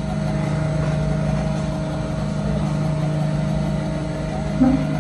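Small electric motor of a crayon spin-art machine spinning its disc, a steady hum, with a brief louder sound near the end.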